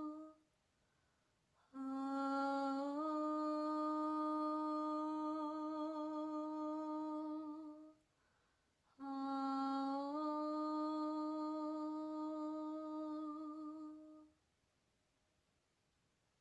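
A single voice humming long held notes. One note ends just after the start, then two notes of about six seconds each follow with short breaks between them, each sliding up a little about a second after it begins.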